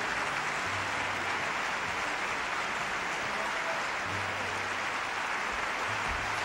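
Audience applauding steadily, a dense even clapping.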